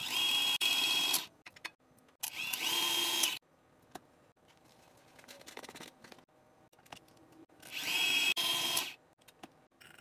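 Stand mixer motor running with its wire whisk beating butter and sugar, heard in three short bursts of about a second each, each opening with a rising whine.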